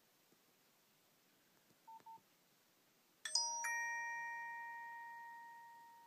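Nokia Asha 210's 'Email 3' alert tone from the phone's speaker: a bell-like chime struck twice in quick succession a little after three seconds in, with a bright high attack, then ringing on and fading slowly. About two seconds in there are two short beeps.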